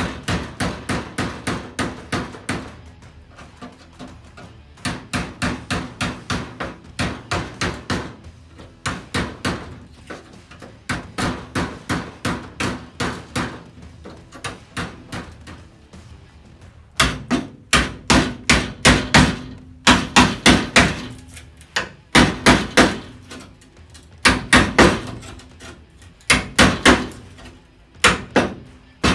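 Hammer driving a cold chisel into the steel of a classic Mini, cutting the rusted remains of the rear valance away from the boot floor skin: sharp metal strikes about three a second, in runs with short pauses, getting louder about halfway through.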